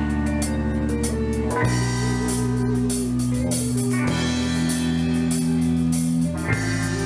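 Music: a band piece with guitar and drum kit, held chords changing every couple of seconds over a steady beat.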